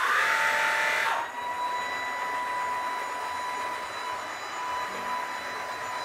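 Shark ICZ160UK cordless vacuum's motor just switched on, its whine climbing and settling about a second in to a steady high whine over a steady rush of air.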